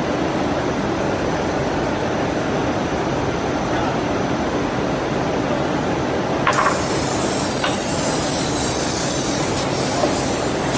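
Door-stile shaping and drilling machine running with a steady noise. About six and a half seconds in, a clunk is followed by a sudden hiss that carries on, with a couple more knocks later.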